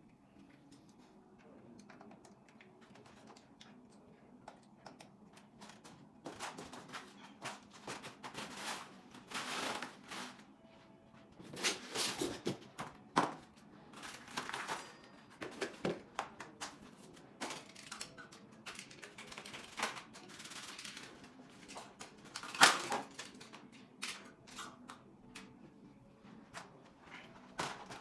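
Cardboard, foam and plastic packing being handled on an electric bike: irregular rustling and crackling with scattered clicks and knocks, the loudest about three quarters of the way through.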